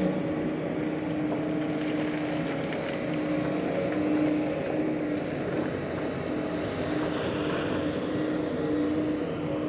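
JCB tracked excavator's diesel engine running steadily under load as the machine digs, swings and lifts its bucket.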